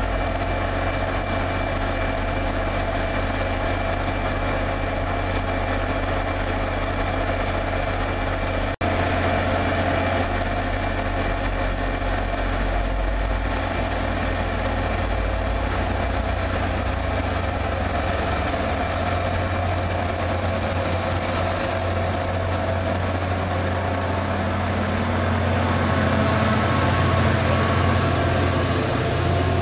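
Commuter-train diesel locomotive's engine running at low throttle as the train creeps past, a steady drone with a low hum that grows a little louder near the end as the locomotive comes alongside. A faint high whine slowly rises in pitch through the second half, and the sound breaks off sharply for an instant about nine seconds in.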